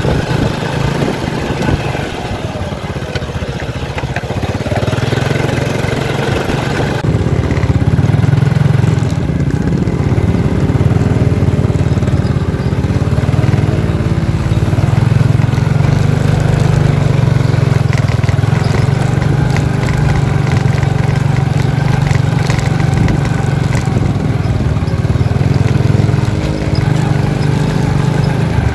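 Small motorcycle engines running at low speed along a rough dirt track, the bikes laden with sacks of harvested rice: a steady engine drone that gets louder about seven seconds in.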